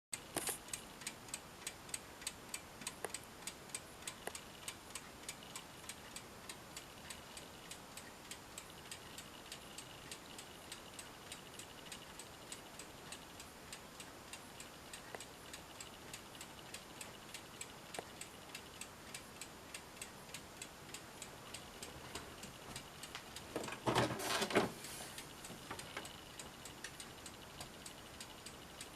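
Steady, evenly spaced mechanical ticking, about three ticks a second, louder in the first few seconds. About 24 seconds in there is a louder clattering burst lasting about a second.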